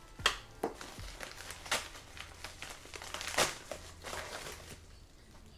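Packaging crinkling and rustling as a parcel is unwrapped, in uneven crackles, the sharpest about three and a half seconds in, thinning out near the end.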